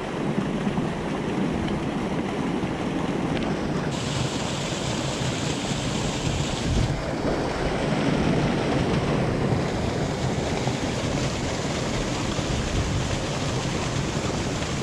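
Warm-water discharge gushing from a concrete pipe into a creek: a steady rush of falling water. Its hiss turns brighter for a few seconds about four seconds in.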